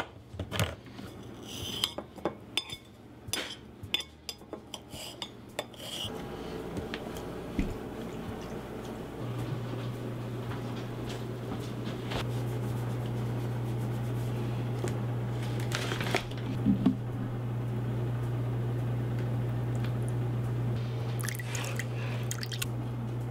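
Kitchen cooking sounds: a hand-held can opener clicking sharply as it is cranked around a tin can, then a steady hiss with a low hum and a few clinks of dishes.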